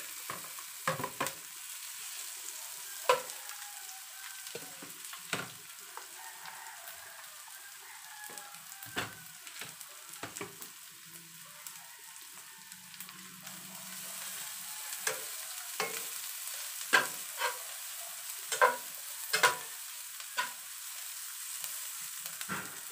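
Onion, garlic and chopped lumpia shanghai sizzling in olive oil in a nonstick frying pan, with a steady hiss, while a spatula stirs them, scraping and knocking against the pan; the knocks come louder and closer together in the last few seconds.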